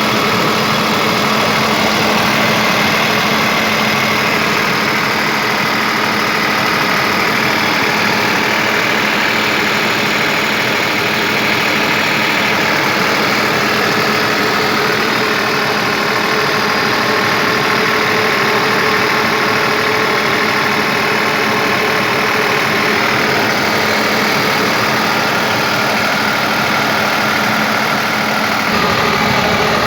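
30 kVA Kirloskar Koel iGreen diesel generator running steadily at a constant speed, with an even hum.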